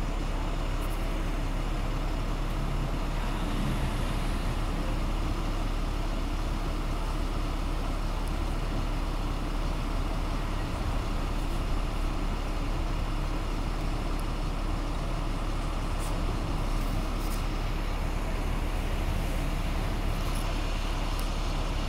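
Steady drone of a 2009 International 3300 IC CE300 school bus under way, heard from inside the cabin: its MaxxForce DT inline-six diesel engine running at an even pace, mixed with road noise.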